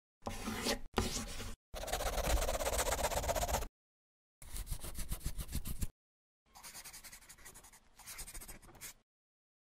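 Pen scribbling on paper in several quick scratchy strokes, with short silent gaps between them; the last strokes are fainter.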